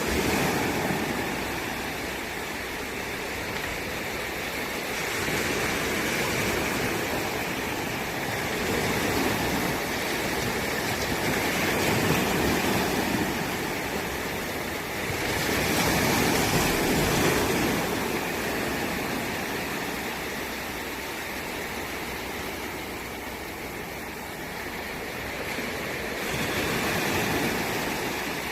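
Waves washing in: a steady rush of water that swells and eases every few seconds.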